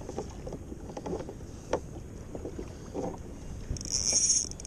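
Water sloshing against a kayak hull with a few light knocks, and a brief hiss near the end.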